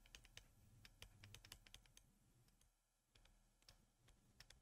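Near silence with faint scattered clicks: several in the first two seconds and two more near the end.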